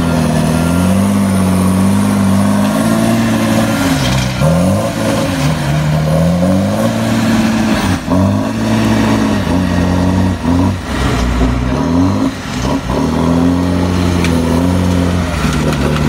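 Diesel engine of a Tigercat 635 six-wheel grapple skidder running under load as it maneuvers, its engine speed dipping and climbing again several times.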